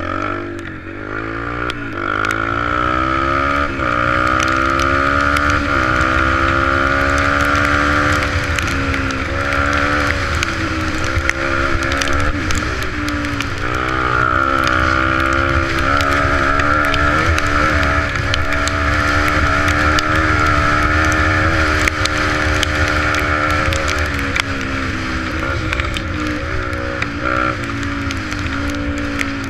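Yamaha 125 dirt bike engine accelerating hard through the gears, its pitch climbing and then dropping at each shift, later holding a steadier pitch. A low rumble of wind on the microphone runs underneath.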